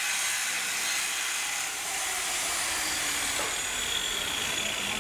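Handheld angle grinder running against a large metal pipe, a steady high grinding noise.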